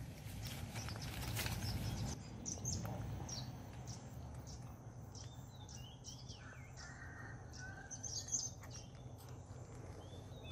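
Faint outdoor ambience of small birds chirping: short high chirps scattered through the second part, after a couple of seconds of soft rustling.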